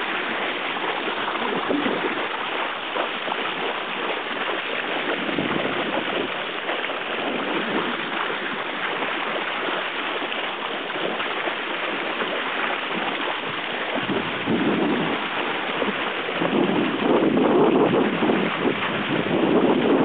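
Water rushing and splashing along a yacht's bow as it moves through the water, with wind buffeting the microphone. The sound grows louder and fuller in surges in the last few seconds.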